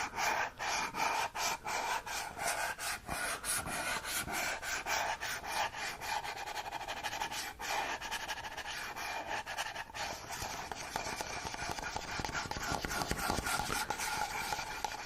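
Rapid scratchy rubbing strokes, several a second and continuing steadily.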